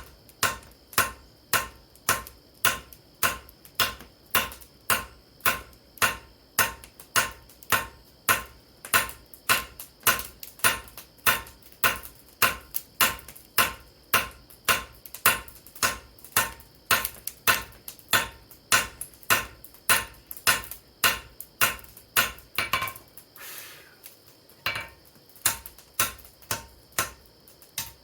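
Hand hammer striking hot steel on an anvil in a steady rhythm of about two blows a second, squaring up the sides of a bar of handle steel. The blows pause briefly near the end, then resume.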